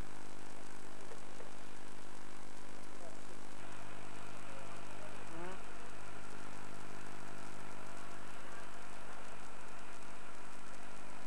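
Steady low hum with a hiss, unbroken through the whole stretch, with a brief rising chirp about five and a half seconds in.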